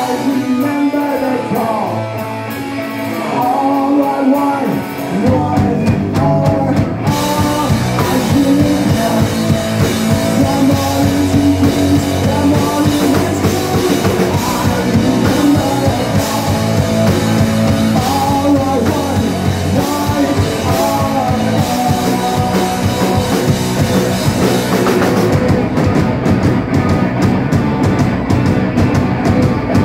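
Punk rock band playing live: distorted electric guitars, bass guitar and drum kit, with a sung vocal. The full band kicks in about seven seconds in.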